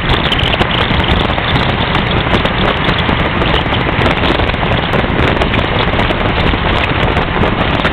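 Loud, steady rush of wind over the microphone of a car driving along at road speed, with constant crackling from the buffeting and the car's engine and road noise mixed in underneath.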